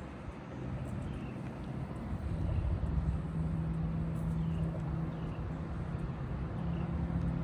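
A steady low engine drone that comes up about two seconds in, over a rumbling background.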